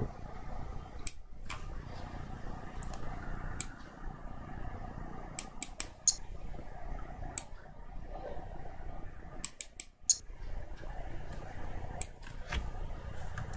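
Computer mouse clicking now and then, single clicks and quick runs of two or three, over a steady low hum.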